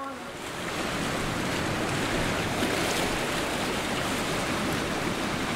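Steady wash of sea waves and surf, swelling in over the first half second and then holding even.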